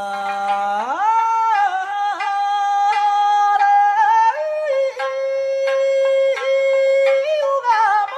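Background music: a solo voice singing long held notes. It leaps up about an octave about a second in, and the held notes waver with ornaments.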